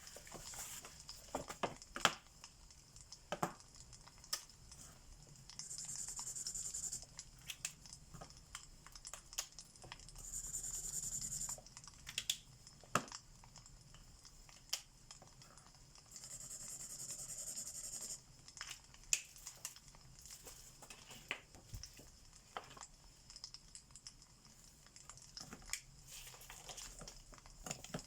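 Alcohol marker nibs rubbing across paper in three stretches of a second or two of steady hiss, over a crackling fireplace with frequent sharp pops.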